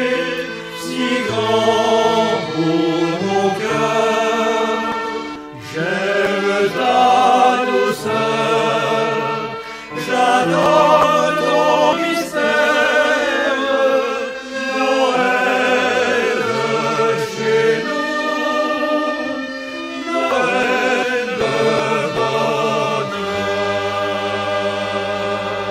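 Several voices singing a traditional song together, in phrases with short breaks between them, closing on a long held note near the end.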